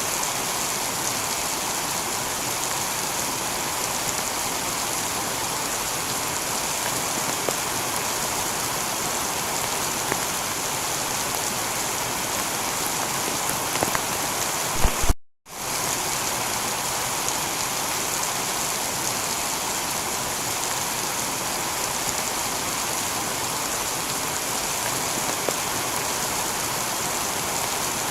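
Steady heavy rain pattering on a tiled roof. About halfway through, a couple of short low thumps come just before the sound cuts out for a split second, then the rain resumes.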